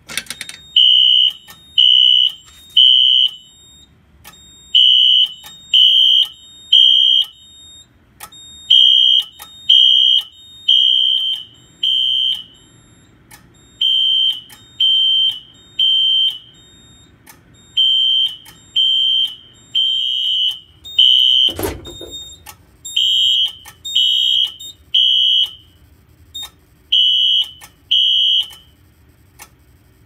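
Wheelock NS fire alarm horn strobe sounding the temporal-three evacuation pattern after a manual pull station was pulled: high-pitched beeps in groups of three, with a pause between groups. There is a single thump a little over two-thirds of the way in, and the horn cuts off near the end as the alarm is silenced at the panel.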